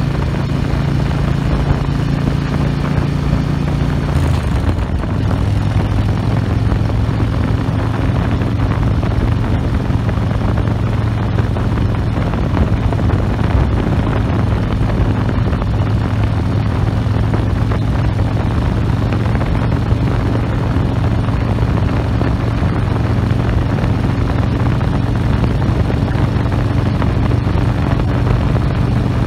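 Harley-Davidson V-twin motorcycle engine running at cruising speed, heard from the saddle with wind rushing over the microphone. The engine note drops to a lower pitch about four seconds in, then holds steady.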